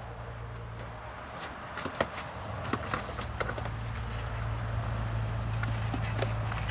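Belgian Malinois puppy's paws clicking and tapping irregularly on a wet trailer bed, with scattered light knocks, over a steady low hum.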